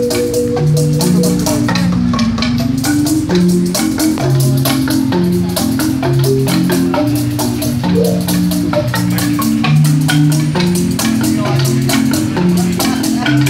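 Large wooden street marimba played by two people with mallets: a melody over repeating low bass notes in a steady, even rhythm.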